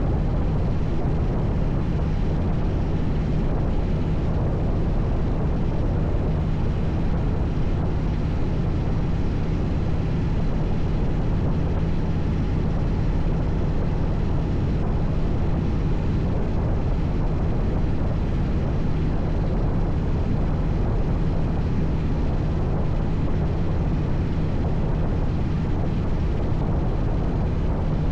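Vehicle engine running at a steady pace, a constant low droning hum over rushing noise that does not change.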